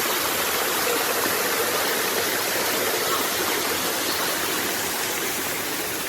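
Steady rush of flowing water from a rocky mountain stream, a continuous even hiss with no break.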